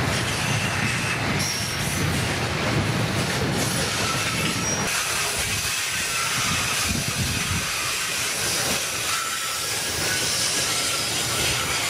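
Freight train of covered hoppers and boxcars rolling past on the rails: a steady wheel-on-rail running noise, heavier in the low end for the first few seconds, with faint high wheel squeal.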